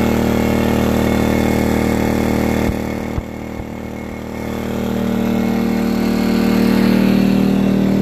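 Predator 2000 inverter generator's small single-cylinder four-stroke engine running steadily near full load, a constant drone. About three seconds in it dips in level for a second or so, with a few faint knocks, then swells back up.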